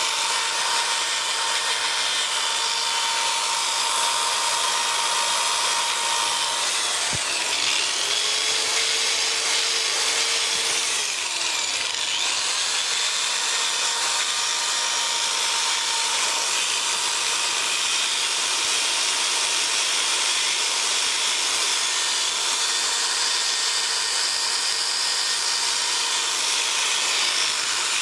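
Electric drill running steadily with a brush attachment scrubbing rust off a motorcycle's steel exhaust pipe: a steady motor whine under a harsh rubbing scrape.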